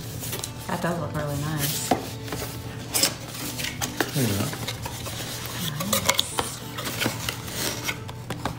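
A stiff cardboard gift box being opened and handled: its lid and flaps rub and scrape, with scattered sharp clicks and knocks as the panels are folded back.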